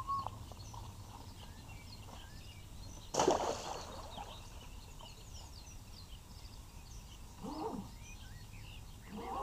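A splash about three seconds in as the thrown radio-controlled speedboat hull lands in the lake, over a steady background of small birds chirping.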